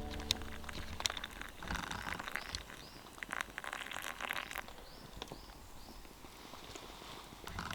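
Twigs burning in a small steel twig stove, giving scattered sharp crackles and pops over a soft hiss.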